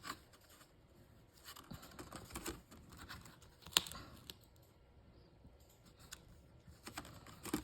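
Light taps and clicks with soft paper rustling as small paper card pieces are handled and pressed into place on a work surface. One sharper click comes a little before the middle.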